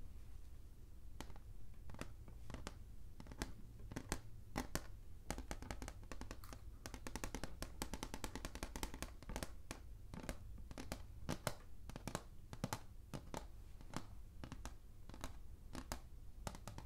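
Fingertips tapping and scratching on a small wood-framed chalkboard up close: irregular sharp taps, several a second, coming thicker around the middle.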